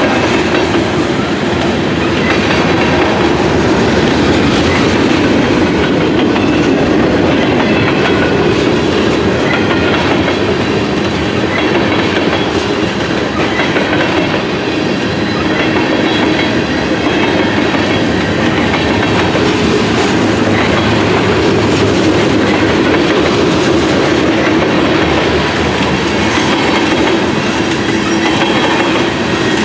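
Norfolk Southern freight train passing: loud, steady rumble and clatter of railroad cars rolling over the rails for the whole stretch. A horn blast cuts off right at the start.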